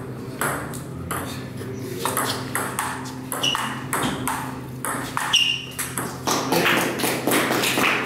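Table tennis rally: the celluloid ball clicking off rackets and the table in a quick, irregular series of sharp hits, over a steady low hum.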